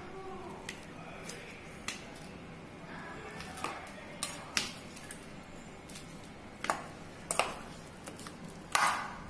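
Steel spoon mashing ripe bananas in a stainless steel bowl: irregular clinks and taps of the spoon against the bowl.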